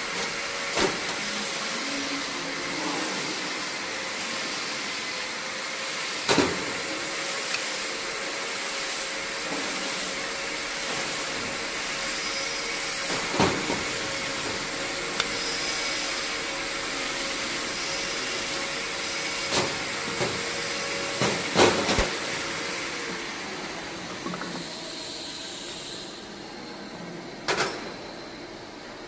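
Steady blowing hiss of a running machine, with a faint steady hum that stops about three quarters of the way through and the hiss easing near the end. Several sharp clinks and knocks of steel rods and aluminium mould holders being handled and set down on a stainless steel table.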